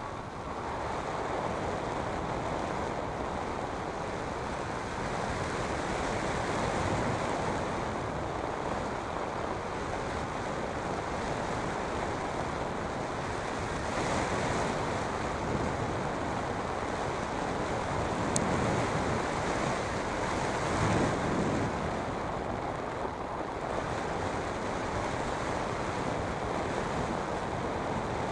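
Steady rushing wind noise from airflow buffeting the microphone of a hang glider in flight, swelling and easing now and then.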